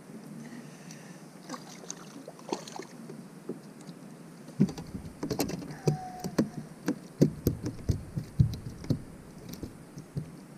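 Irregular knocks and slaps on a boat's plastic deck, starting about halfway in: a freshly caught perch flapping on the deck and being handled as it is picked up.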